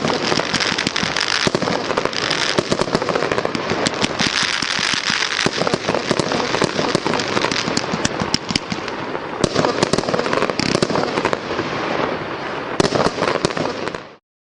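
A 1-inch 35-shot straight-up consumer fireworks cake firing: rapid sharp shots over continuous dense crackle, with no break between shots. The sound cuts off suddenly near the end.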